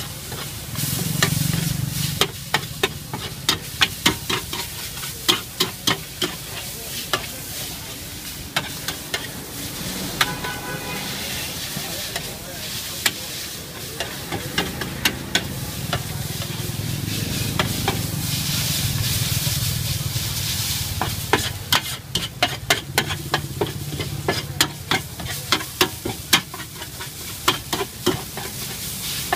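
Metal spatula scraping and clacking against a large flat steel pan as instant noodles are stir-fried, the sharp clacks coming in quick runs. A steady sizzle of frying runs underneath, with a low steady hum.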